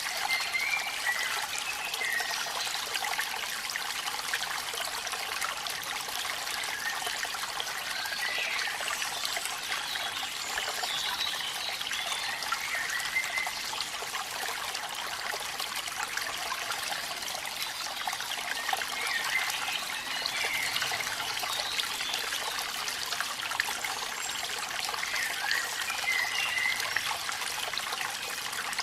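Steady hiss of rain and falling water at a waterfall, with faint short high chirps now and then.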